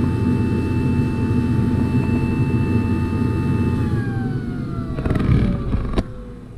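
Carrier Infinity furnace's draft inducer motor running at high speed with a steady whine, then winding down with a falling pitch from about four seconds in; a couple of sharp clicks near the end. It is ramping so high because the low pressure switch never closes, a fault caused by birds blocking the flue pipe.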